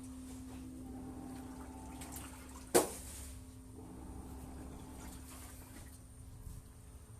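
Midea fully automatic washing machine running with water in the drum: a steady hum over a low rumble and faint water noise, broken by one sharp click nearly three seconds in.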